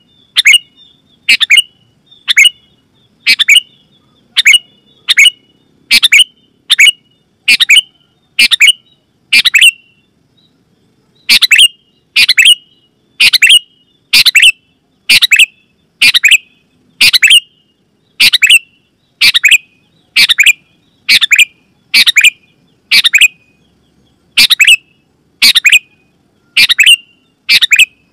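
Sooty-headed bulbul (kutilang) calling loudly: a short, sharp chirp repeated about one and a half times a second, each note dropping quickly in pitch, with one brief pause about ten seconds in.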